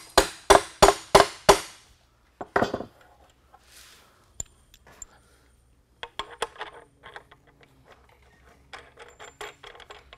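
Hammer blows driving a half-inch carriage bolt through a snug hole in a wooden board, about three strikes a second, stopping about a second and a half in. From about six seconds in come light metallic clinks as a washer and nut are fitted onto the bolt's threaded end by hand.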